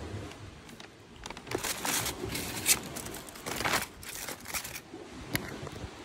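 Brown paper lunch bag crinkling and rustling in several irregular bursts as a hand opens it and rummages inside.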